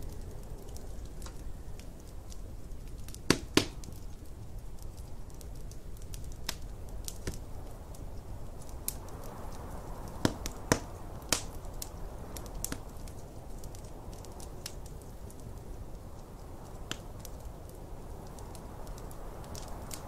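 Wood fire crackling in a fireplace, with scattered sharp pops; two loud pops a few seconds in and three more about ten to eleven seconds in. Underneath, a steady low rumble of snowstorm wind that swells now and then.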